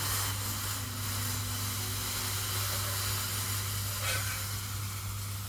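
Vegetable stock hissing steadily as it hits a hot pan of brandy-soaked peppercorns, boiling off in steam.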